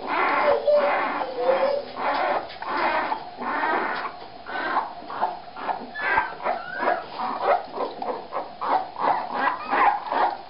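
Newborn puppies squealing and whimpering in a continuous string of short, high, overlapping cries, several a second: hungry newborns crying.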